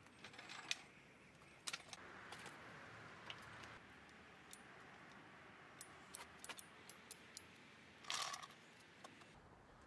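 Faint, scattered light clicks and clinks of small metal parts or tools being handled, with one short rustling scrape about eight seconds in.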